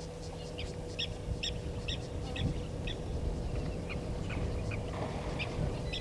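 A bird calling a run of short, sharp chirps, about two a second, with a few more near the end. Beneath it is a steady low rumble and a faint steady hum.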